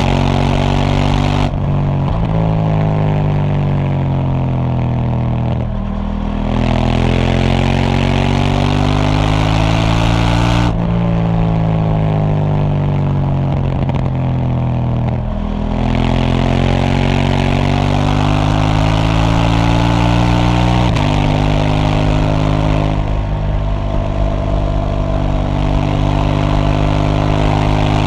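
KTM Duke 790's 799 cc parallel-twin engine with its stock exhaust, heard while riding. The rider twice rolls off the throttle, and the engine note falls on the overrun before he opens it up again. About two-thirds of the way through there is a gear change, where the pitch steps down at once.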